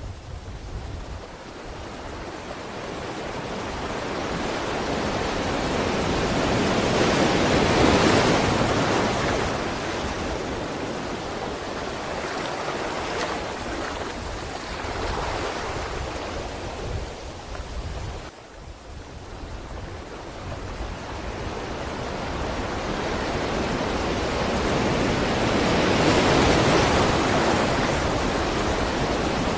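Sea waves surging and washing onto a shore in two long swells. The first peaks about eight seconds in, then falls to a short lull past the middle, and the second builds to a peak near the end.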